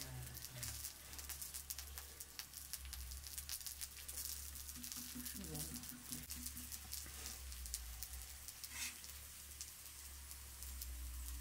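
Potato slices, tomato halves and a meat patty sizzling in oil on a large flat metal griddle, a steady crackle of fine pops, with a short metal scrape of tongs about nine seconds in.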